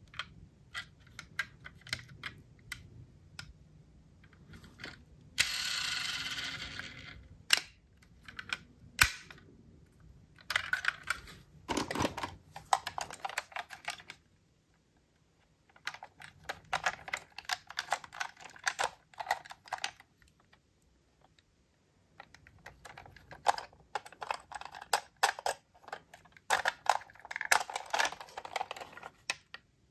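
Small clicks and rattles of diecast metal model cars being handled, coming in irregular clusters, with a short rustle about six seconds in.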